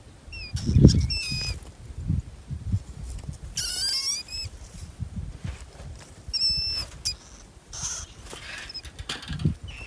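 Trapped field rats squeaking in short, high-pitched calls, with a longer run of squeals about four seconds in, while wire-mesh trap cages knock and rattle as the rats are shaken from a trap into a holding cage.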